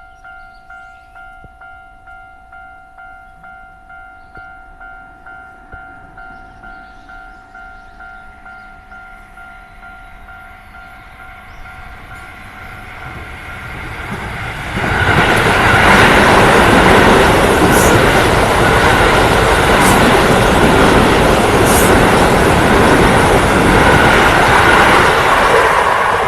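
Japanese level-crossing warning bell dinging about twice a second, then a Keio Line electric train approaching and passing over the crossing: a loud rushing rumble of wheels on rail from about fifteen seconds in, with a few sharp clicks.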